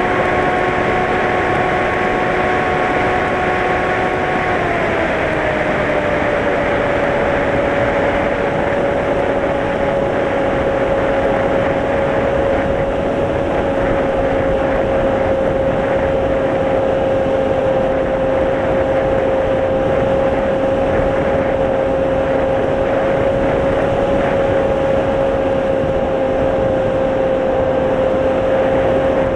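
Mini Drak FPV flying wing's electric motor and propeller whining steadily, heard from on board with wind rushing over the airframe. About five seconds in the pitch slides down a little as the motor slows, then holds steady.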